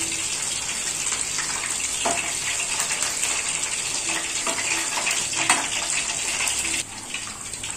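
Boneless chicken 65 pieces deep-frying in hot oil in a pan: a steady sizzling hiss, with a few light clicks of a steel slotted spoon against the pan as the browned pieces are turned. The sizzle drops a little about seven seconds in.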